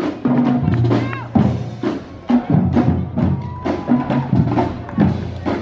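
School marching band playing as it marches past: sousaphones and other brass holding low notes over a steady percussion beat of about two strikes a second.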